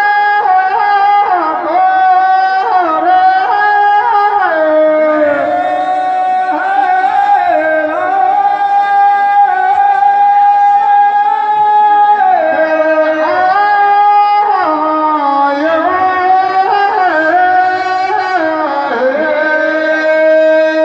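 Teja gayan: a man singing through a microphone in long, drawn-out held notes that slide and step between pitches, with no drum or other accompaniment.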